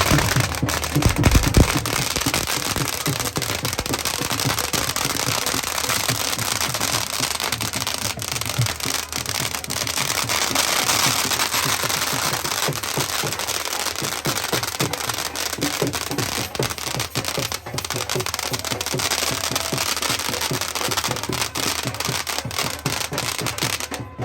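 A long string of firecrackers going off in rapid, continuous crackling bangs, stopping suddenly near the end.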